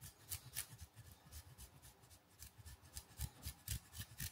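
Block of parmesan being grated on a fine rasp zester, a faint run of short scraping strokes, about three a second.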